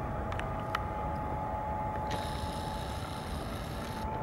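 Twin-engine jet airliner at takeoff thrust as it lifts off and climbs away: a steady low rumble with several steady whining engine tones over it.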